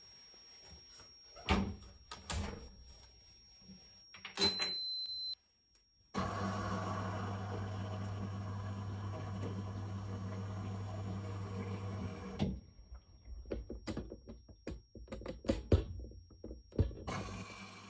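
Washing machine at work: scattered knocks and clicks and a brief high beep, then about six seconds of steady motor hum, then more irregular knocking and clatter.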